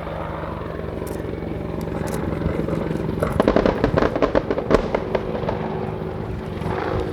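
WAH-64D Apache attack helicopter's rotor and turboshaft engines running steadily. About three seconds in, a rapid, irregular string of sharp bangs lasts about two seconds: pyrotechnic charges simulating the 30mm gun's fire on the target.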